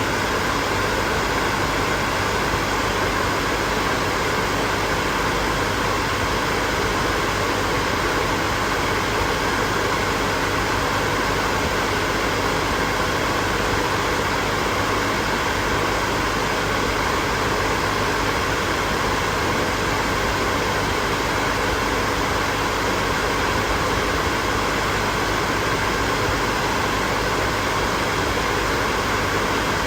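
Hair dryer running continuously: a steady, unchanging rush of blown air over a motor hum.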